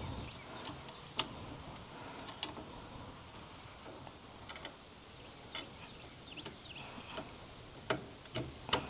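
Animal drinking from a water container, heard as scattered sharp clicks and taps at irregular intervals, several close together near the end, over a quiet outdoor background.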